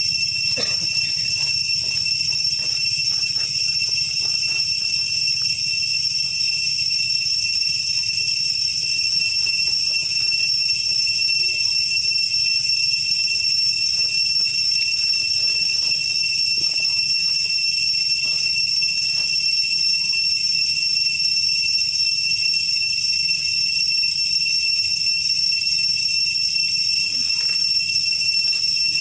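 Steady high-pitched insect chorus, a continuous shrill drone at several fixed pitches, with faint scattered clicks and rustles.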